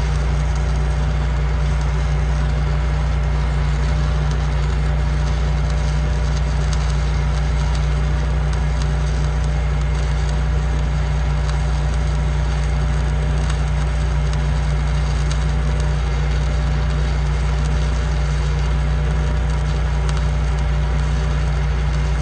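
Stick welding arc burning a 7018 electrode: a steady crackle and sizzle over a low hum.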